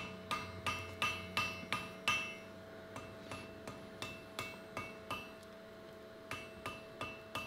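Hand hammer striking red-hot iron on an anvil, about three blows a second with a short pause about five seconds in, drawing a V-shaped section round. A steady ringing tone holds underneath the blows.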